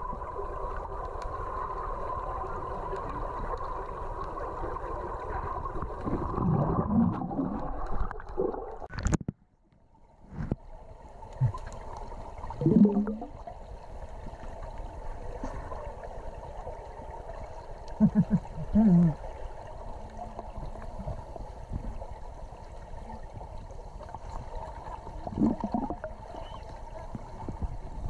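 Underwater sound picked up by a camera held below the surface: a steady muffled water hiss, with several low gurgling bursts of air bubbles rising from scuba divers. About nine seconds in there is a sharp click, and the sound drops out for about a second.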